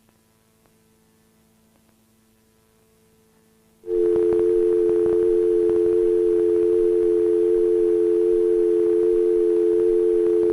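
Faint mains hum, then about four seconds in a loud, steady North American telephone dial tone (the 350 Hz plus 440 Hz pair) comes on suddenly and holds.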